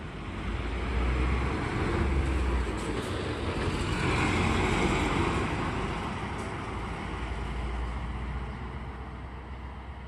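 Isuzu diesel route bus driving past close by and pulling away down the street. Its engine and tyres grow loud in the first second, then fade steadily as it drives off.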